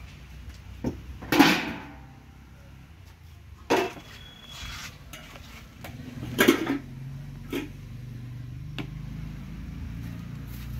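Metal cookware clanking as pans and a large metal tray are knocked and set down. There are several knocks, the loudest about a second in with a short ringing tail, and lighter clinks later.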